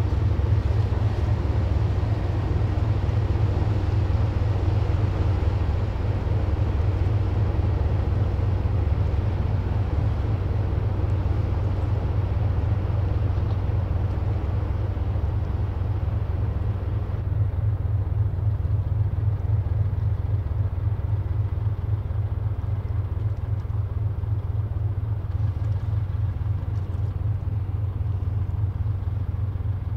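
Steady low drone of passing ships' engines. A lighter hiss above it thins out a little over halfway through.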